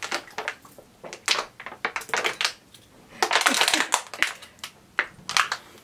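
Thin plastic water bottle crackling and crinkling in several bursts of sharp clicks as it is gulped down fast, its sides caving in under the suction.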